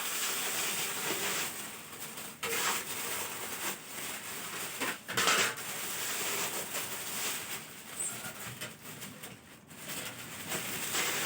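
Packaging being handled while a ceiling fan is unboxed: uneven rustling and crinkling with a few short knocks, loudest about five seconds in.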